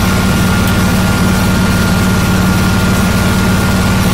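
John Deere 445 garden tractor's liquid-cooled V-twin engine idling steadily, with a thin steady whine above it.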